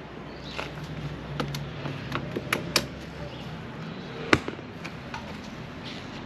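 A string of sharp plastic clicks and knocks from a gloved hand working the ignition knob and switches of a Honda Forza 350 scooter. Several come in the first three seconds, then one louder clunk about four seconds in.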